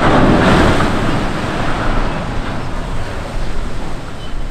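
Loud rush of water as a large ship hits the water broadside in a sideways launch, the wash of spray and waves fading over a few seconds.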